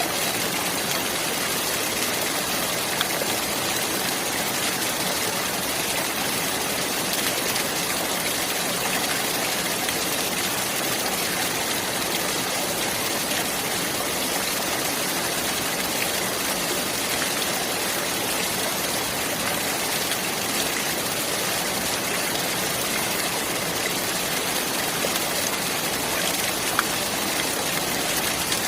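Running water: a stream or small waterfall flowing in an even, unbroken rush, with a few faint splashes.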